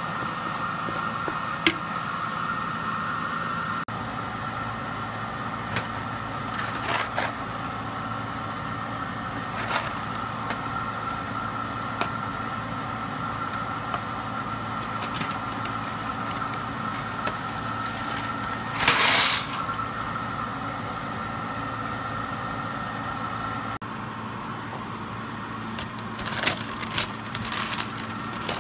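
A steady mechanical hum from a kitchen appliance, with scattered clinks and knocks of utensils and cookware, a brief louder clatter about two-thirds of the way through, and a flurry of clicks and crinkling near the end as a plastic snack bag is handled.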